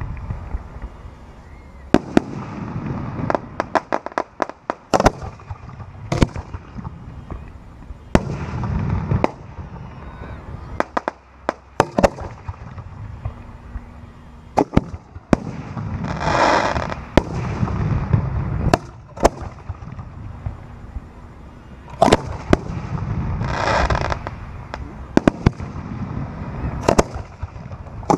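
Professional display fireworks firing at close range: a rapid, irregular run of sharp reports from shells launching out of mortar tubes and bursting overhead, with low rumbling between them. Two longer rushing, hissing effects go off, one around the middle and one a few seconds later.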